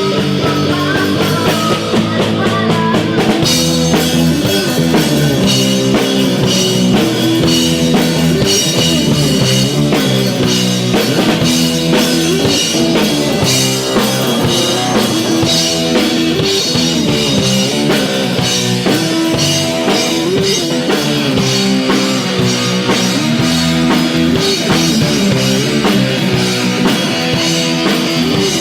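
Rock band playing an instrumental passage of a song on drum kit and guitar; the cymbals come in fuller after about three seconds.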